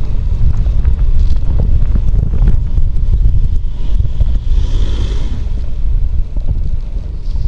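Wind buffeting the microphone of a head-mounted camera on a moving bicycle, a loud, steady low rumble. About five seconds in, an oncoming car passes close by, its tyre hiss swelling and fading.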